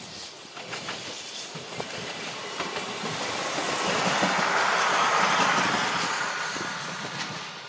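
ÖBB passenger train passing, with a rushing rail noise and wheels clicking over the rail joints. It swells to its loudest about five seconds in and fades toward the end.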